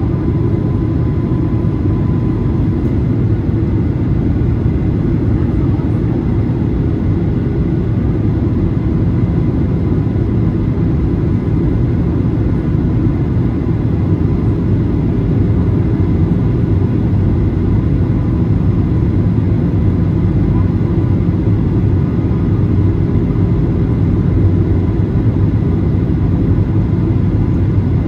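Steady cabin rumble of a Boeing 737-800 in flight: the CFM56-7B engines and the airflow over the fuselage give a deep, even roar, with a faint thin whine on top.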